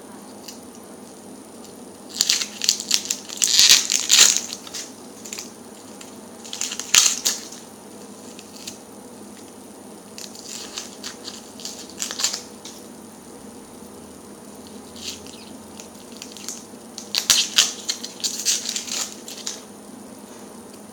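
Dry, papery onion skin crackling and tearing as it is peeled off a quartered onion, in four bouts of a second or two with pauses between.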